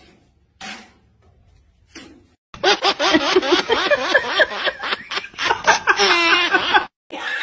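Near quiet with two brief faint sounds, then loud laughter breaks in suddenly about two and a half seconds in, with rapid ha-ha pulses, and stops abruptly shortly before the end.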